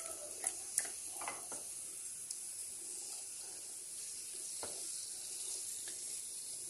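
Masala-coated fish pieces shallow-frying in oil in a nonstick pan: a steady, quiet sizzling hiss, with a few light clicks in the first second or so.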